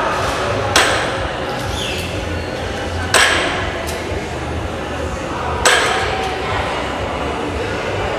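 Loaded barbell with iron plates knocking down onto the gym floor at each deadlift rep, about every two and a half seconds, each knock ringing briefly.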